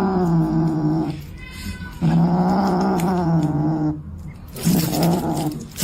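A pet animal giving three long, drawn-out moaning yowls, each lasting one to two seconds, at a low and fairly steady pitch.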